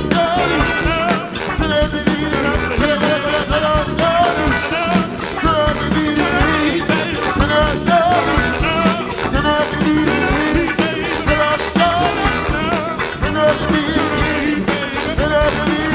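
Live band playing an upbeat song with a steady drum beat, guitar and a singing voice.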